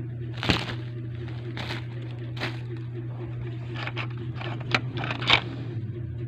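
Handling sounds from unboxing a miniature kit: packaging crinkling and small parts clicking in about nine short, separate bursts, the loudest about half a second in and near the end. A steady low hum runs underneath.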